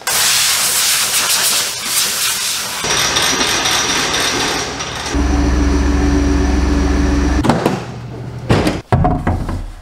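Compressed air blasting from a shop air hose, a loud steady hiss with a whistle in it, blowing PVC dust away. About five seconds in it gives way to a steady low hum for a couple of seconds, then a few knocks as a length of PVC pipe is set into the truck bed.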